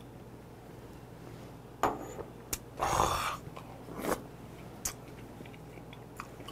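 A person eating close to the microphone, with mouth clicks and smacks, and a short slurp of soup broth from a wooden ladle about three seconds in. The first two seconds are near quiet.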